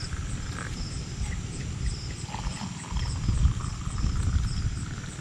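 Night insects, crickets or katydids, chirping in a steady rhythm of about two to three pulses a second, over a louder, uneven low rumble.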